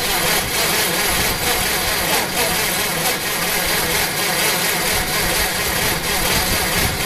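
1947 Crosley pickup's small four-cylinder engine being cranked over steadily by its starter motor without firing, which the owners put down to the tank probably being out of gas.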